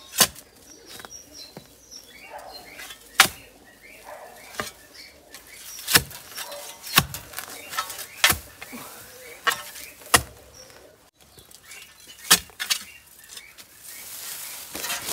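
Shovel blade chopping into soil and dense bamboo roots: about ten sharp strikes at irregular intervals, one every second or so.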